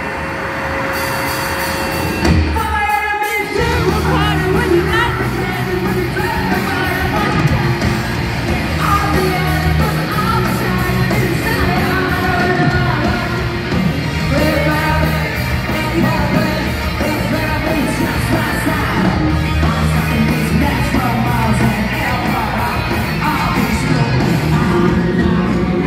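Live rock band playing a loud, noisy jam through an arena PA, heard from far back in the crowd, with a singer's voice over it. A held tone gives way to the full band crashing in about two seconds in, with a falling sweep, then singing over a heavy bass and drums.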